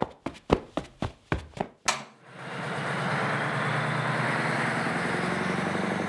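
A quick run of sharp knocks, about four a second, stops about two seconds in. A Mercedes-Benz garbage truck's diesel engine then starts running steadily with a low hum.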